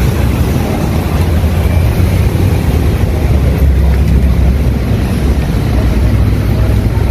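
Loud, steady low rumble of city street traffic mixed with wind buffeting the phone's microphone.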